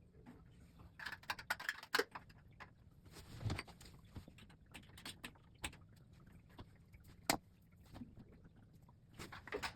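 Small metal flathead screwdrivers scraping and clicking against coins wedged in a washing machine's drain housing, in irregular short taps and scrapes with a duller knock about three and a half seconds in and a sharp click near seven seconds.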